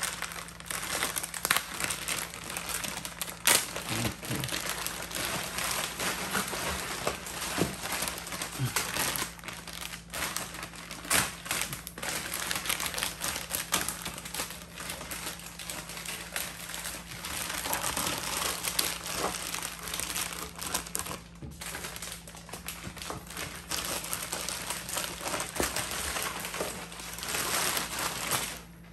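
Clear plastic bag crinkling and rustling as it is worked off a boxed electronic unit, with frequent sharp crackles; it stops suddenly near the end.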